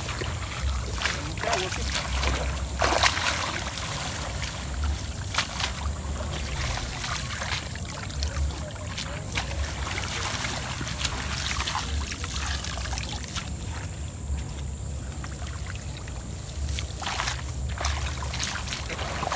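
Wind buffeting the microphone as a steady, gusting rumble. Over it come scattered rustles and squelches of hands and feet moving through wet grass and mud.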